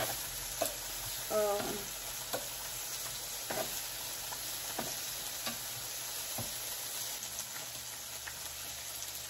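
Beef and pork belly sizzling on an electric griddle: a steady frying hiss, with a few short light clicks of tongs against the meat and griddle.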